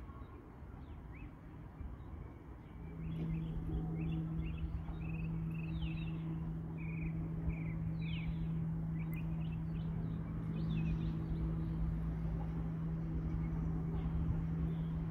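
Songbirds calling, among them a northern cardinal: short chirps and a few falling whistled notes. About three seconds in a steady low mechanical hum starts and becomes the loudest sound.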